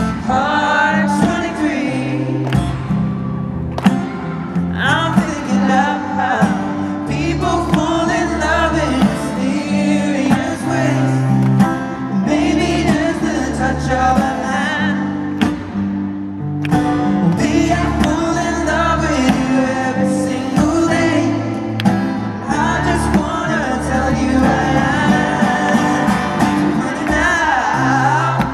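Live concert performance: a male singer singing a slow ballad over strummed acoustic guitar, heard through the venue's PA from the audience.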